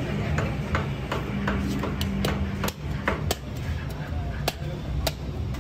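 Cleaver chopping into a goat's head: a dozen or so sharp strikes, about two a second and unevenly spaced, over a steady low hum.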